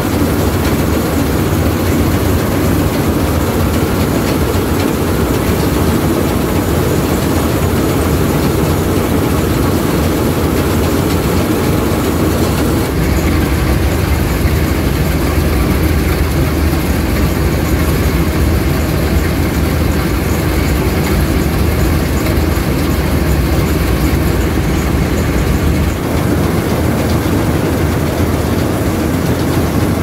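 Combine harvester at work cutting rice: the engine, reel, header auger and threshing machinery make a loud, steady din. The sound changes about thirteen seconds in and again near the end.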